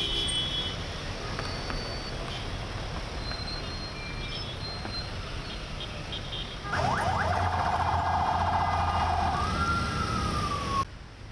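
Road traffic noise, then an emergency vehicle siren starts about seven seconds in. It gives a fast warbling yelp, then switches to a single rising-and-falling wail and cuts off abruptly near the end.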